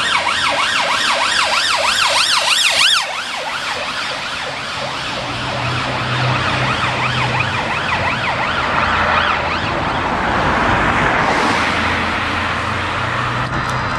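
UK police car siren on a fast yelp, its pitch sweeping up and down several times a second. About three seconds in it drops abruptly in level and carries on fainter, mixed with traffic noise.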